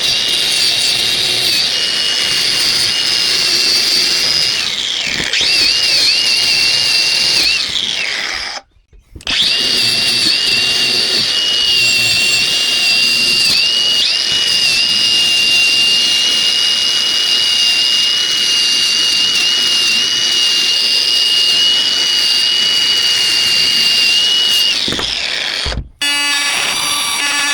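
Hercules brushless angle grinder running with a steady high whine. Its pitch sags and wavers under load as it works the rusty steel. It stops briefly about nine seconds in, starts again, and runs until it winds down shortly before the end.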